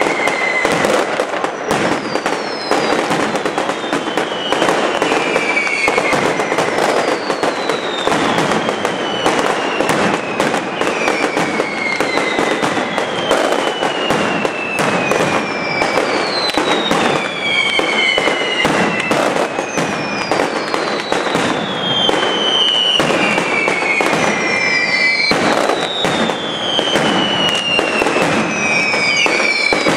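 Mascletà firecrackers, strings of tracas and masclets hung on cords, going off in a dense, continuous crackle of bangs. A falling whistle cuts through about every three seconds.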